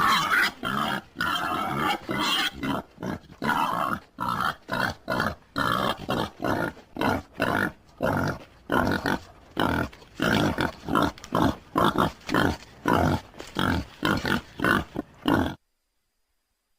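Wild boar calling in a rapid series of short, harsh grunting calls, two or three a second, which stop suddenly near the end.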